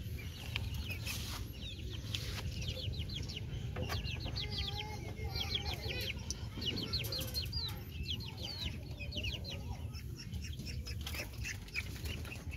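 Chickens clucking, with a steady stream of high, quick chirps.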